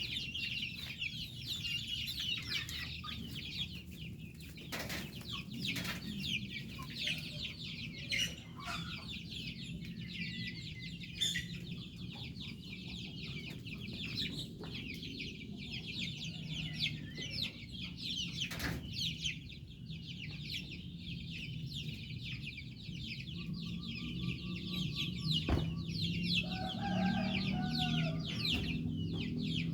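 A flock of chickens clucking and calling, with a dense, continuous chatter of short high chirps and a few sharp knocks scattered through it.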